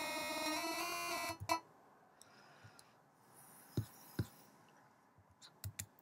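Synthesized MIDI tones, several notes sounding together as a held, slightly wavering chord, cutting off with a sharp click about one and a half seconds in. After that, a few faint mouse clicks.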